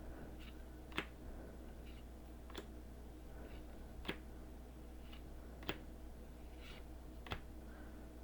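Trading cards from a freshly opened booster pack being flipped through one at a time. Each card moved makes a faint, sharp snap, about every second and a half, over a low steady hum.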